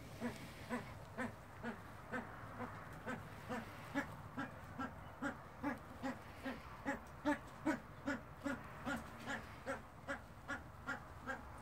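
Male Himalayan monal giving a steady series of short, low calls, about two a second.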